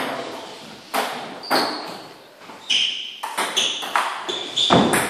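Table tennis rally: the ball clicks off the paddles and bounces on the table in quick succession, each hit with a short high ring. The hardest strike comes near the end.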